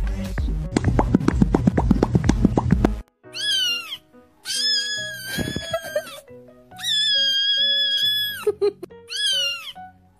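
Fast, pulsing music with heavy bass, cutting off about three seconds in to four drawn-out cat meows over quieter background music. The first and last meows rise and fall in pitch, and the two middle ones are long and held.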